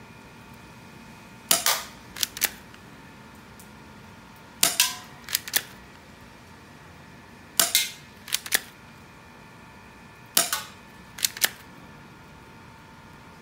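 Airsoft 2011 Hi-Capa gas blowback pistol firing 0.20 g BBs: sharp cracks with the slide cycling, in four groups of a few shots about three seconds apart.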